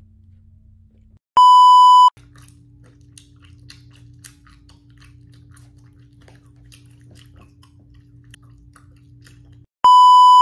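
Two loud electronic beeps, each a single steady pitch held well under a second, like a TV test-pattern tone: one about a second and a half in and one near the end. Between them a faint low hum with scattered faint clicks.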